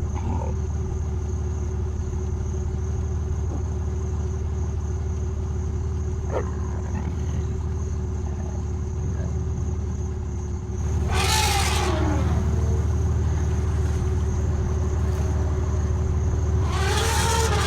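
A vehicle engine idling steadily, with a large wild animal giving two loud, harsh calls: one about eleven seconds in lasting about a second, and another near the end.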